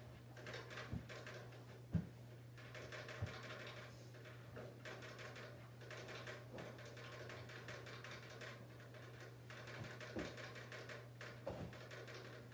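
Faint soft thumps and rustling of a child's hands and feet moving across a rug and onto couch cushions while crab-walking, with a steady low hum underneath.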